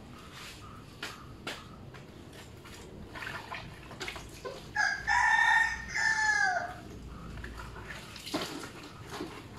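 A rooster crows once, about five seconds in: one long call of about two seconds that drops in pitch at the end. Around it are light scattered knocks and splashes.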